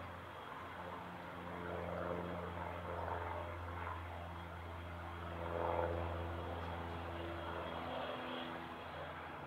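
Embraer E195LR's twin General Electric CF34-10E turbofans running at low taxi power: a steady hum and hiss with a few constant tones, swelling slightly twice.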